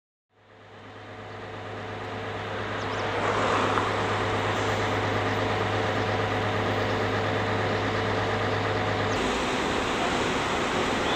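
Car engines and road traffic around a queue of slow-moving cars, fading in over the first three seconds into a steady noise. A low hum underneath stops abruptly about nine seconds in, where the sound changes.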